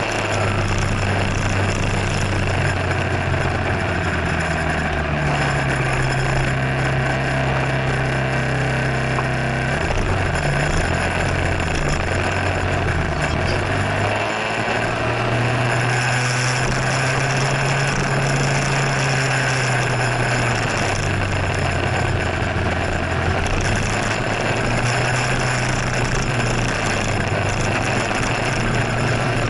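Motor scooter engine running under way, its low hum stepping up and down in pitch as it speeds up and slows in traffic, over a steady rushing hiss.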